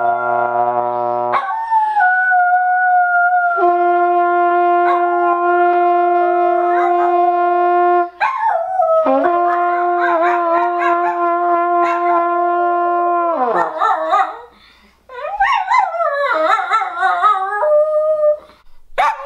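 A brass horn held on long, steady notes while a dog howls along with it. In the last third the howling slides and wavers up and down with short yips.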